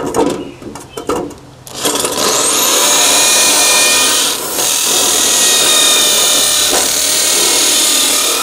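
Cordless hammer drill boring a hole through the mortar joint of a brick wall, through a pre-drilled hole in aluminum flashing. A few light knocks come first; the drill starts about two seconds in and runs loud and steady with a high whine, easing off briefly about halfway through.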